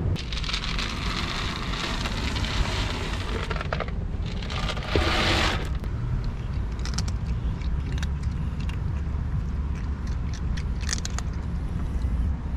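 Cats crunching dry kibble: scattered small, crisp crunches over a steady low rumble. Before the crunching there is a few seconds of rustling hiss, and then a short, louder scraping burst.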